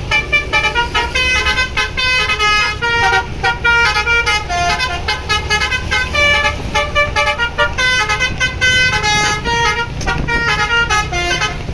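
Basuri V3 multi-tone bus telolet horn playing a quick tune of short stepped notes, several tones sounding together, over and over. The bus engine rumbles underneath.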